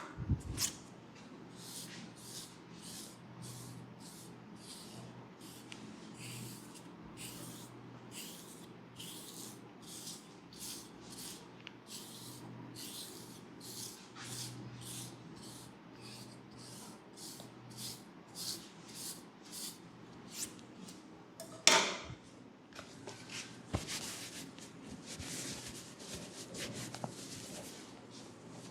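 Hands rubbing and massaging a person's scalp in brisk, repeated strokes, a little under two a second, with one louder, sharper sound about three-quarters of the way through.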